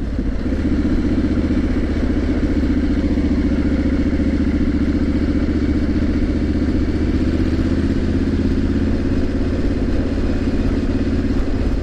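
Triumph Street Scrambler 900's parallel-twin engine running at steady revs while the bike is ridden, over a constant rush of wind and road noise.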